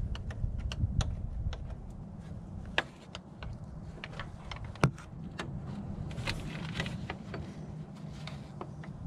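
Irregular metal clicks and clinks of a wrench and hand working on a lead-acid battery terminal and cable, with two sharper clinks a couple of seconds apart, over a low steady rumble.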